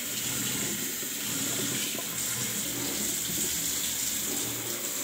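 Kitchen tap running steadily into a clear jar held under it at a stainless steel sink, the water splashing into the jar.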